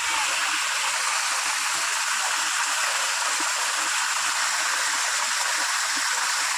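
Waterfall: a steady rush of falling water, mostly a high hiss with little low rumble.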